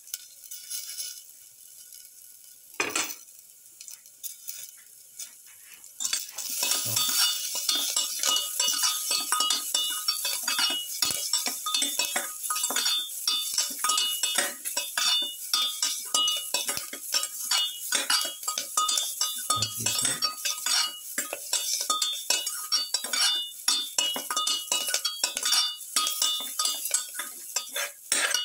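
Perforated metal spatula stirring and scraping curry leaves, onions and tomato around a pan: a single knock about three seconds in, then from about six seconds in a steady run of clinks and scrapes over a light sizzle.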